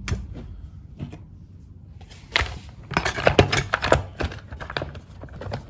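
Spark plug boot clicking onto the plug of a Husqvarna 51 chainsaw, then a quick run of hard plastic clicks and knocks from about halfway through as the orange top cover is fitted back over the engine.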